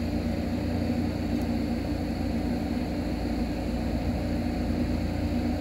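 Steady hum with two low steady tones over a rushing noise: the equipment of parked electric trains running while they stand in a rail yard.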